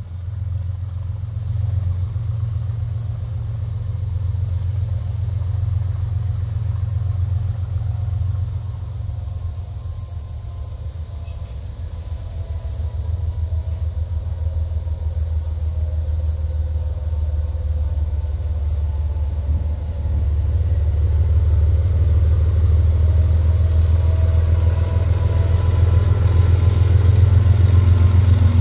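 GE ES40DC diesel locomotive's GEVO-12 engine working under throttle as it hauls a freight train toward the listener: a deep, steady engine rumble that grows louder about two thirds of the way in and louder still near the end as the lead units come close.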